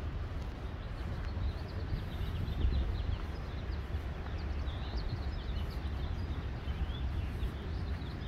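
Many birds chirping, with short high calls scattered all through, over a steady low rumble.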